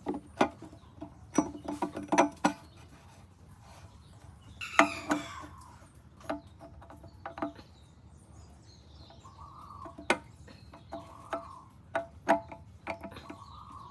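Scattered metallic clinks and taps of tools and metal engine parts being handled, each with a brief ring. A rooster crows once about five seconds in, and hens cluck later.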